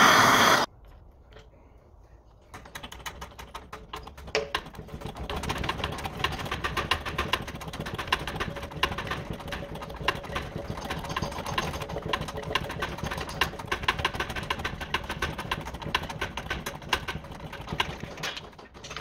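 A loud steady whine of a heat gun warming a Ford Pinto piston cuts off abruptly about half a second in. After a short lull, fast, uneven mechanical clicking and ticking runs on for some fifteen seconds as the heated piston is worked in the press to push the gudgeon pin out of the connecting rod.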